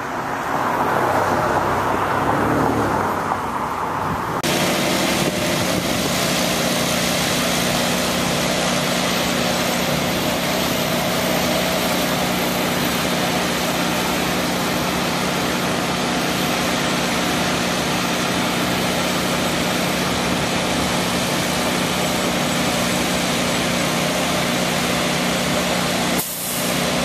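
Heavy diesel engine running steadily at a concrete pour, typical of a concrete boom-pump truck, with a steady low hum over a broad rumble. The sound changes abruptly about four seconds in and dips briefly near the end.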